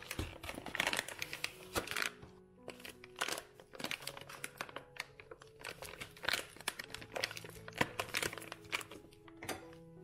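Foil-lined paper coffee bag crinkling and rustling as it is handled and taken out of its cardboard box, in a run of irregular crackles, over soft background music.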